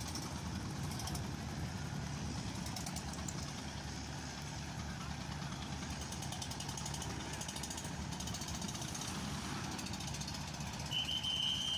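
Boat engine running steadily with a low, even drone. A brief high steady tone sounds near the end.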